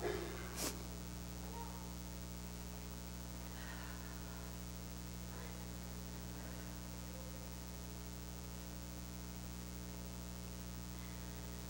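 Steady low electrical mains hum, with one sharp click under a second in.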